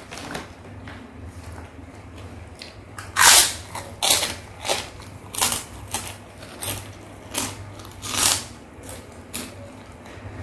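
White kerupuk cracker bitten and chewed close to the microphone. A loud crunching bite comes about three seconds in, then crisp crunches about twice a second as it is chewed.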